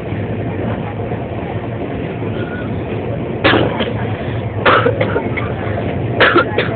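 Steady running noise of a passenger train heard from inside the coach while it travels at speed. A few short, sharp noises stand out, first around the middle and then twice close together near the end.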